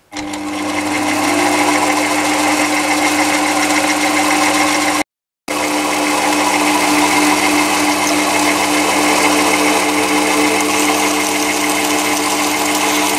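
Small metal-working lathe switched on with a click, running up to speed within about a second and then running steadily with a hum and whine from its motor and drive. The sound cuts out completely for half a second about five seconds in.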